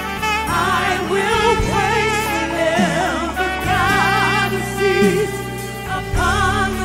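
Live gospel worship music: an alto saxophone plays held, wavering notes together with backing singers, over long sustained bass notes.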